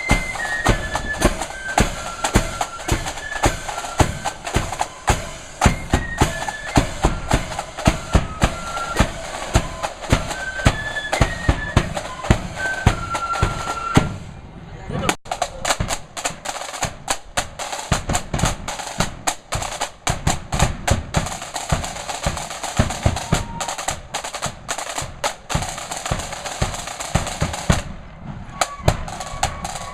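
Marching flute band playing: a flute melody over snare and bass drums. About halfway through, the flutes stop and the drums carry on alone with snare rolls and beats, and the flutes come back in near the end.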